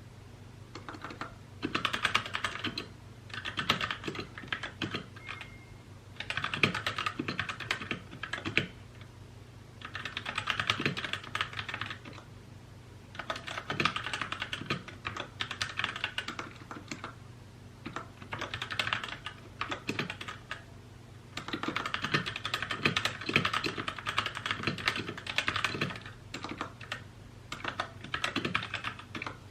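Typing on a mechanical keyboard: quick runs of key clicks lasting one to four seconds, broken by short pauses.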